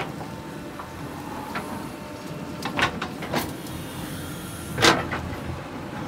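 JCB 3DX backhoe loader's diesel engine running steadily while the backhoe digs into soil, with several sharp knocks from the bucket working the ground; the loudest comes about five seconds in.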